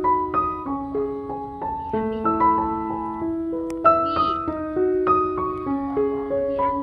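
Background music: a light melody of struck keyboard notes, one after another at changing pitches.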